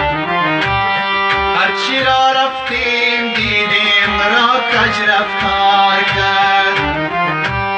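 Instrumental passage of an Afghan song: a steady hand-drum rhythm with deep bass strokes that slide down in pitch, under sustained chords, with a wavering lead melody in the middle.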